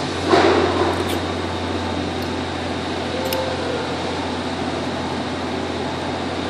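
Steady low machine hum with a haze of fan-like noise, a brief noisy burst about half a second in, and a few light clicks as small brass valve parts are handled.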